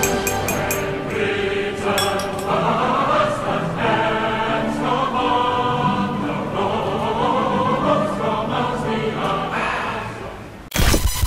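Orchestral music with a choir singing. A few light clinks of a spoon on a china teacup come near the start. The music fades near the end and gives way to a sudden burst of static-like noise.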